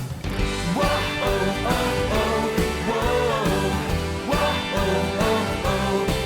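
Instrumental introduction of a Christian pop song: after a drum lead-in, a full band comes in with a steady bass and a melody line that bends in pitch, starting about a second in.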